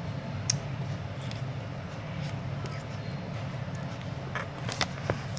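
A steady low hum under a few small clicks and mouth sounds of eating ice cream from a cup with a wooden spoon. There is one click about half a second in, and a cluster of clicks near the end.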